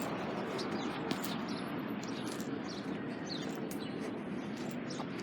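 Small birds chirping repeatedly in short high calls over a steady background rush.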